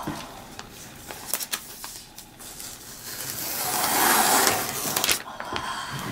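Translucent protective wrapping sheet rustling as it is pulled off and slid out from under a MacBook Pro laptop, swelling and fading over about two seconds. Light clicks and taps from handling the laptop and box come before and after it.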